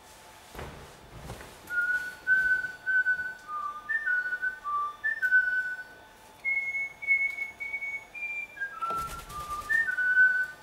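Cockatiel whistling a tune of clear, held notes that step up and down, rising to a higher run of notes in the middle. A short fluttering burst comes near the end, then the whistling goes on.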